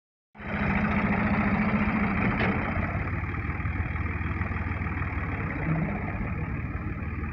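New Holland 480S tractor's diesel engine running steadily under load as it pulls a seed drill across a ploughed field. It is a little quieter after about three seconds, as the tractor moves away.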